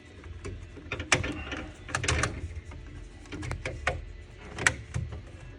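Scattered metallic clicks, knocks and rattles as the steel rod of a swing-away rear-camera bracket is worked by hand in its mount, with the sharpest knocks about a second, two seconds, four seconds and nearly five seconds in, over a low steady rumble.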